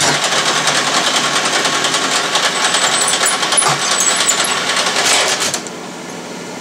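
Metal lathe running with a fast, even clatter, which cuts off abruptly about five and a half seconds in.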